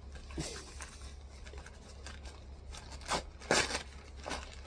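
Brown paper wrapping being handled and torn open by hand, a few short rustles and crackles, the loudest about three and a half seconds in.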